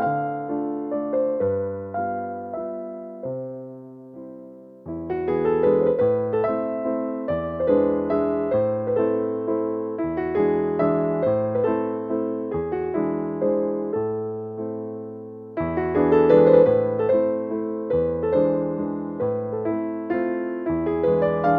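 Piano music: keyboard notes struck and dying away in a slow melody with chords, thinning out and fading about three to five seconds in before picking up again.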